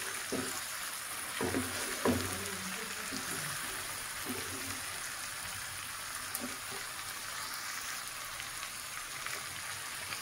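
Chicken leg kosha gravy sizzling gently in the pan: a steady frying hiss, with a few soft knocks in the first two seconds.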